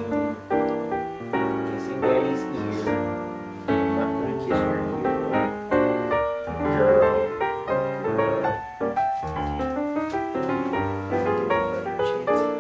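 Background piano music, a continuous run of struck notes.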